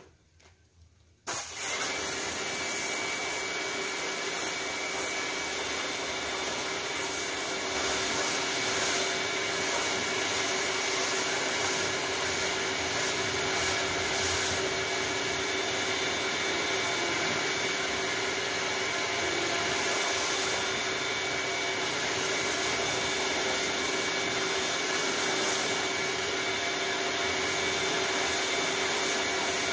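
Pressure washer starting suddenly about a second in, then running steadily with its motor hum and the hiss of the high-pressure water jet spraying onto styrofoam hydroponic boards.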